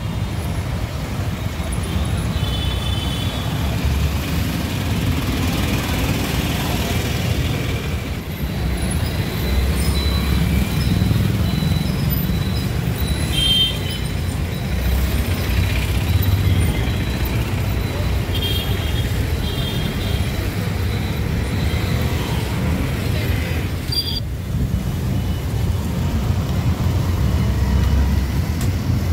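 Roadside traffic noise: a steady low rumble of passing vehicles, with a few brief high tones now and then.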